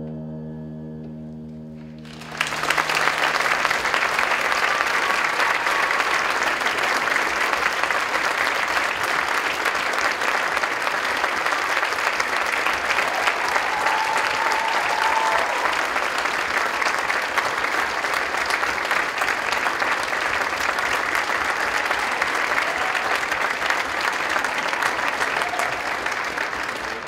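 The last ringing note of the music dies away. About two seconds in, an audience bursts into applause, which stays loud and steady and then tapers off near the end.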